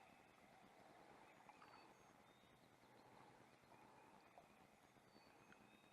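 Near silence: faint outdoor background only.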